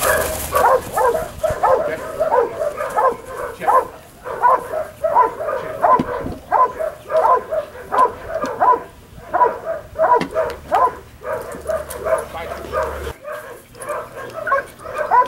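A dog barking steadily and rhythmically, about three barks every two seconds, without a break.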